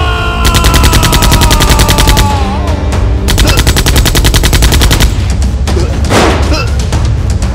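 Rapid automatic gunfire sound effect in two long bursts over background music, with a sudden noisy hit about six seconds in.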